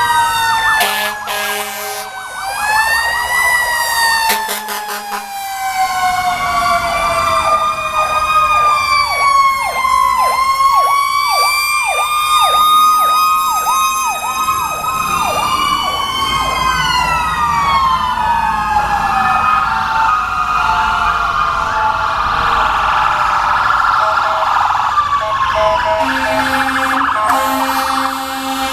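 Several fire truck sirens sounding at once as the trucks drive past, their slow rising-and-falling wails overlapping. Through the middle, one siren switches to a fast repeating yelp.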